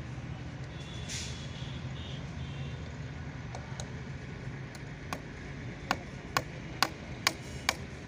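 Hammer knocking a nail into a wooden plank: a few light taps around the middle, then six sharp strikes about two a second in the last three seconds, over a steady low background rumble.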